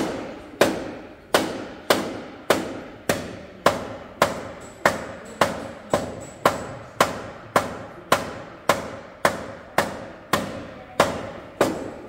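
Steady hammer blows on the crash-damaged front end of a car clamped on a frame straightening bench, about two a second in an even rhythm, each with a short ring.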